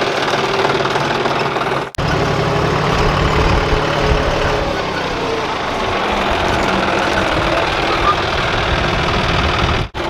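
John Deere 5104 tractor's three-cylinder diesel engine running steadily. After a cut about two seconds in it runs louder, with a deeper, heavier note.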